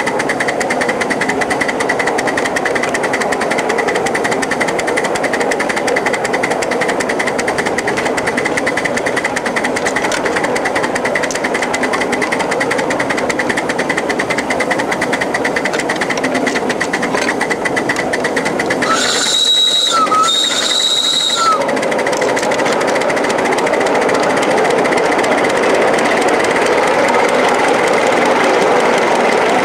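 A 1-inch-scale 0-4-0 live-steam switcher running along the track with a steady, rapid clatter. About two-thirds of the way through, its whistle sounds twice in short high blasts of about a second each.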